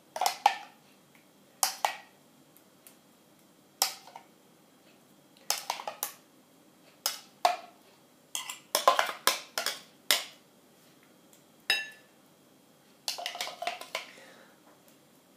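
A metal spoon scraping and tapping against a container as thick sauce is spooned out, heard as sharp clicks at irregular intervals, some in quick runs, with one short ringing clink near the end.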